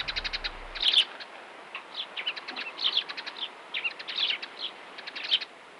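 Small birds chirping: quick runs of short, high chirps repeating throughout over a faint hiss.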